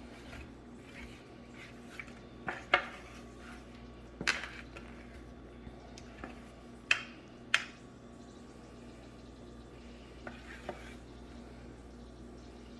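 Dishes and utensils clinking and knocking while food is handled in a kitchen: about eight sharp, separate clatters, the loudest a little under three seconds in and a pair around seven seconds in, over a steady low hum.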